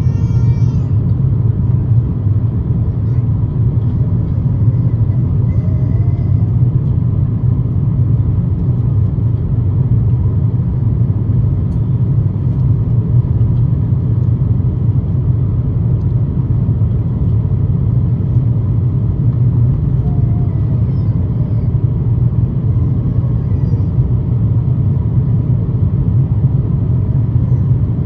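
Steady airliner cabin noise in flight: an even, loud engine and airflow rumble with no change in level.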